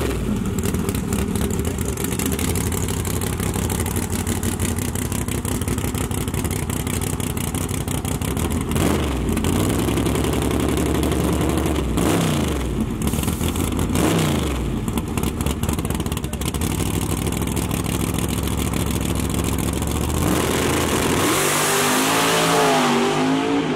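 Nitrous big-block V8 in a drag-racing pickup idling roughly through open exhaust dumps, revved up and down a few times, then launched at full throttle about twenty seconds in, its pitch climbing as it pulls away.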